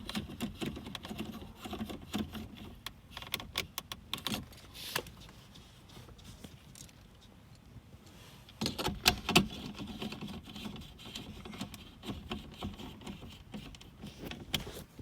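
Scattered small clicks and taps from hands threading the small mounting bolts of a roof-mounted DVD player by hand and handling its plastic housing, with a louder cluster of clicks about nine seconds in.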